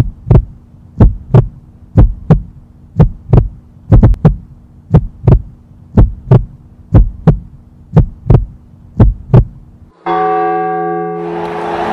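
Heartbeat sound effect, a double thump about once a second over a steady low hum. Near the end a single clock chime rings out and fades, followed by a rising rush of noise.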